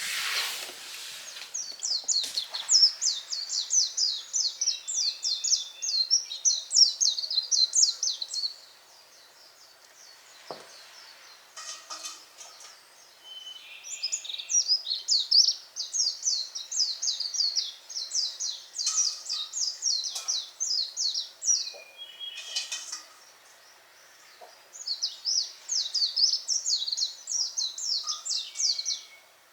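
A songbird singing in long, fast trills of high downward-sliding notes, in three bouts with pauses between them; fainter single chirps from another bird fall in the pauses.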